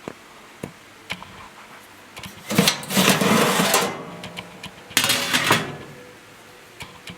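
A few light clicks, then two spells of metal rattling and scraping, the first about one and a half seconds long and the second shorter, as sheet-metal parts of a reassembled RV oven are handled.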